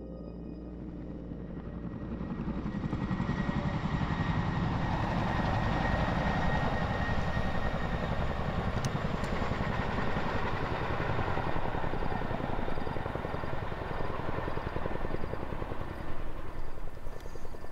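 Helicopter rotor chopping steadily in rapid beats, swelling in over the first few seconds, with a thin steady whine above it.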